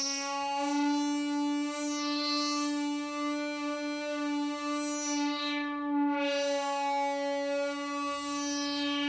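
Synthesizer holding one long steady note while its filter sweeps slowly up and down several times, the tone brightening and dulling.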